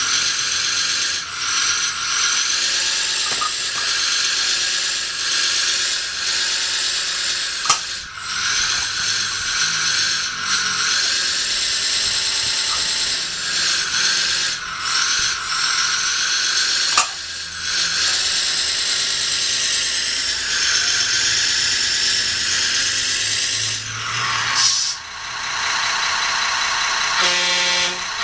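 Small electric gear motors and plastic gearboxes of a 1/16-scale Bruder CAT 320 RC excavator model whirring and grinding as it is operated, with two sharp clicks and a short pause near the end.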